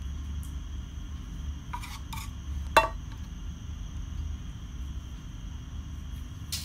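A spoon scraping creamy filling out of a frying pan and knocking against the pan and a ceramic baking dish: two short scrapes, then one sharp clink about three seconds in and a smaller one near the end. A steady low hum runs underneath.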